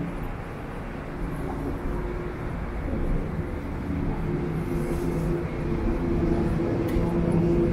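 Traffic noise on a city street, a steady low rumble, with a steady low hum that grows louder through the second half.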